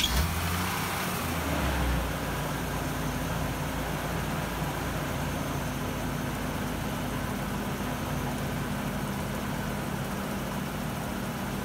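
A 1987 BMW E30 325e's 2.7-litre straight-six engine running, louder for about the first two seconds, then settling into a steady idle.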